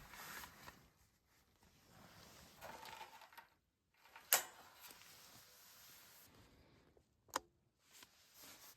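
Quiet rustling, handling noise with two sharp knocks, one about four seconds in and a smaller one about seven seconds in.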